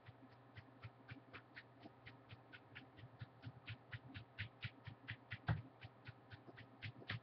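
Rapid, even light taps of a sneaker's side against a shin bone, about four a second, with one harder knock about five and a half seconds in.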